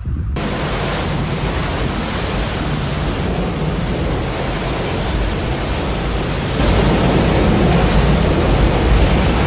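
Fast muddy floodwater rushing: a loud, even roar of water that gets louder about six and a half seconds in.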